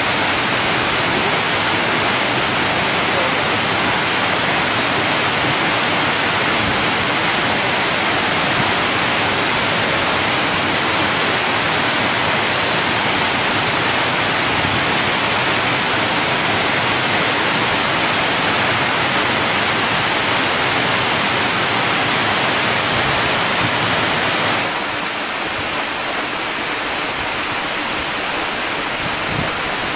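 Large waterfall: a steady, dense rush of falling water. Near the end it abruptly turns a little quieter and thinner in the low end.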